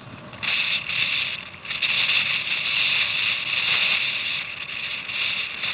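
Strong wind of about 26 mph over choppy sea water around a kayak: a steady rushing noise that swells and dips, dropping briefly at the start and again about a second and a half in.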